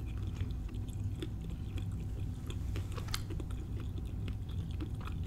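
A person chewing a mouthful of deep-fried empanada with pork-and-cheese filling, close to the microphone: irregular soft crunches and mouth clicks, one sharper crunch about three seconds in, over a low steady hum.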